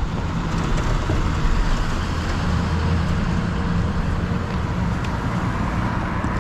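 Road traffic passing close by: cars and a school bus driving past, a steady engine rumble with tyre noise on the road, swelling briefly about two and a half seconds in.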